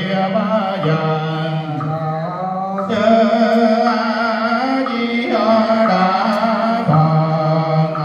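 Buddhist monks' melodic funeral chanting, amplified through a microphone: long drawn-out notes that change every second or two, some wavering in pitch, over a low steady tone.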